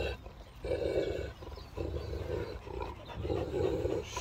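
Kangal shepherd dog growling low in a face-off with another dog: about four long rumbles, one roughly every second, with quieter sounds between them as it breathes.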